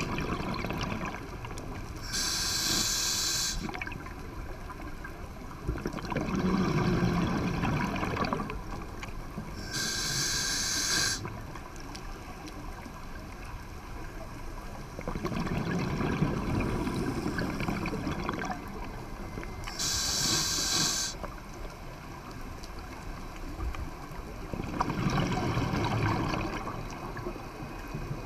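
Scuba diver breathing through a Poseidon regulator underwater: three slow breath cycles, each a short sharp hiss as air is drawn through the demand valve, followed a few seconds later by a longer low bubbling rumble of exhaled air leaving the exhaust valve.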